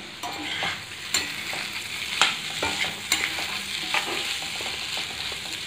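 Spatula stirring jackfruit seed pepper fry in a kadai: steady sizzle of the masala frying, with a few sharp scrapes and knocks of the spatula against the pan.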